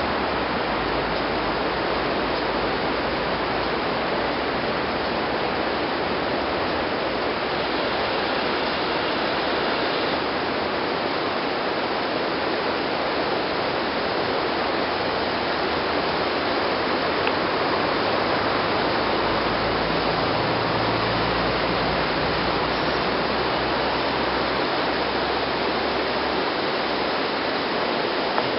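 Steady rushing of the River Dee flowing fast below, an even hiss, with a faint low rumble from a steam train drawing slowly towards the listener.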